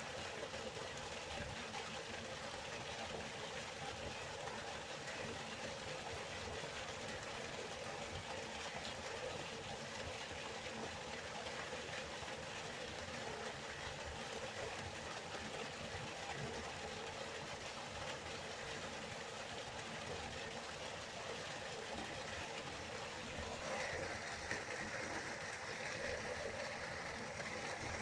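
River water flowing with a steady rushing sound, turning brighter and a little louder near the end.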